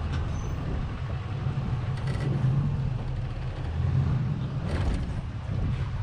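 Full-size truck's engine running at low speed as it crawls over rocks, with a couple of short knocks about two seconds in and again near five seconds, likely tyres and rocks shifting.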